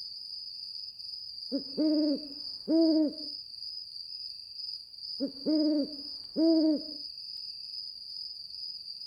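An owl hooting in two phrases, each a short note followed by two longer hoots, over a steady high trill of night insects.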